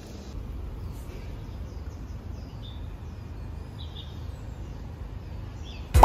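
Outdoor street ambience: a steady low rumble of traffic noise, with several short bird chirps from about halfway through.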